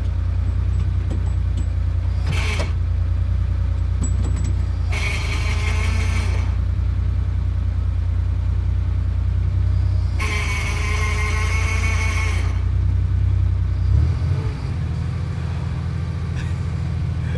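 Sports car engine idling steadily, with two louder, higher-pitched bursts of a second or two each, while the gearbox will not go into first. Near the end the engine note changes to a different pitch.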